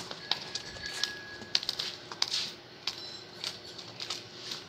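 Water buffalo's hooves clopping on brick paving as it walks: irregular sharp clicks and knocks, one or two a second.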